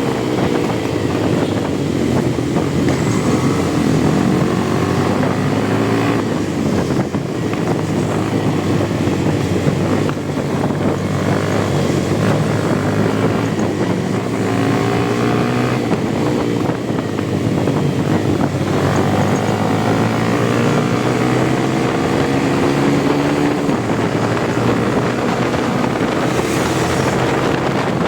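Motorcycle engine running under way, rising in pitch as it pulls through the gears several times and dropping back between, with wind noise on the microphone.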